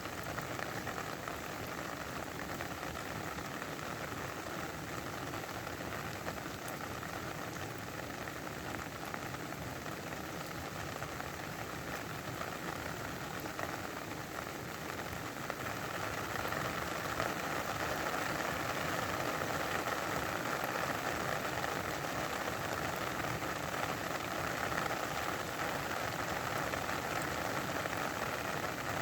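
Steady rain falling, growing a little louder about halfway through.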